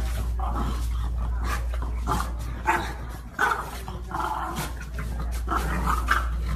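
Two French bulldogs play-fighting, giving a string of short barks and yips over a steady low hum.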